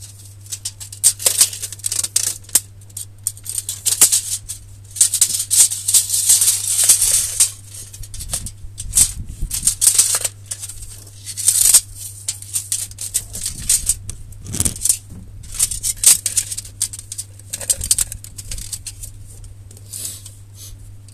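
Irregular bursts of rattling and scraping, on and off, from hands working tools and a tape measure on a mobility scooter's steering track rods while the front-wheel tracking is adjusted, over a steady low hum.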